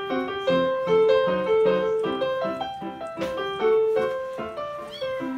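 Background piano music: a light melody of short, quick notes over a simple bass line.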